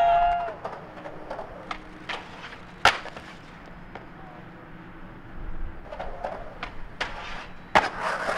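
Skateboard clacks on concrete: a string of sharp board knocks, the loudest about three seconds in and again near the end, with quieter wheel and board noise between them.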